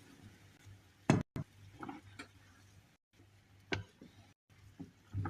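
A spoon stirring ingredients in a saucepan of water, knocking against the pan several times at irregular moments, over a faint low steady hum.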